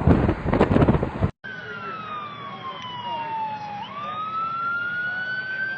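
A loud, rushing, crackling roar cuts off abruptly about a second in. A wailing emergency-vehicle siren follows, its pitch falling slowly, sweeping back up, then falling again.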